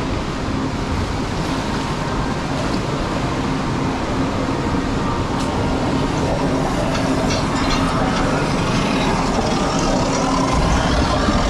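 Log flume boat moving through its water channel and onto the lift hill: steady rushing of water in the trough with a constant hum, and a light rattling clatter from the lift conveyor once the boat starts to climb, about halfway through.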